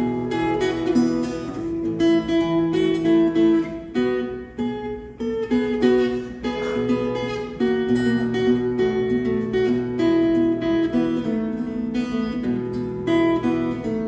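Sitka spruce and mahogany tenor guitar strummed and picked in a live instrumental passage, with no singing.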